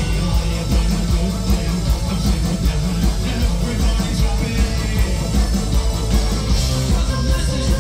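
Live band playing a new wave rock song through a PA system, with drums, bass, keyboard synth and guitar and a steady beat, heard from the crowd.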